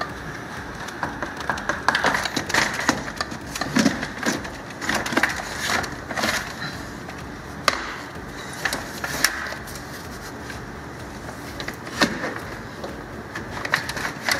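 Plastic radiator fan shroud of a Porsche Cayenne being pulled up out of the engine bay by hand: irregular scraping, rattling and sharp knocks of plastic against the surrounding parts, quieter for a couple of seconds past the middle.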